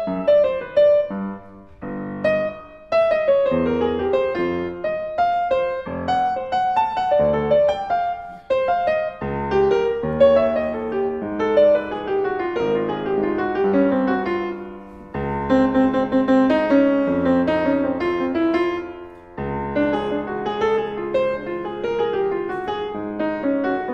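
Yamaha CFX concert grand piano playing a solo piece, a melody over chords with brief pauses between phrases, recorded through a DPA 4006 microphone.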